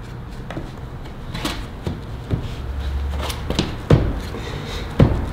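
Knocks and clunks of wooden lumber pieces being handled and set down, a series of separate sharp knocks with the loudest about four and five seconds in, and a brief low hum near the middle.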